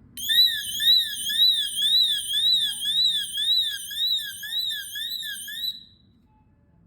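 Built-in alarm of a Tuya Wi-Fi door/window magnetic sensor sounding: a loud, high electronic warble sweeping up and down about twice a second, which cuts off abruptly after about five and a half seconds.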